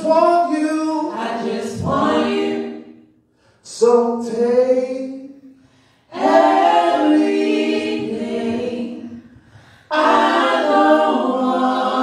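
Gospel worship team of men and women singing a cappella in harmony through microphones, in sung phrases broken by short pauses.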